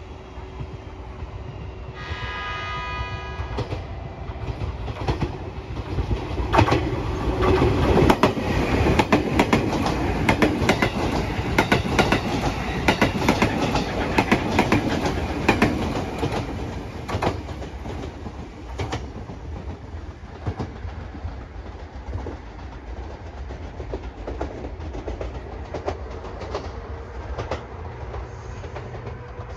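A train horn sounds briefly about two seconds in. Then a JR Kyushu 787-series limited express passes through at speed, its wheels clattering over the rail joints, loudest midway, before fading away.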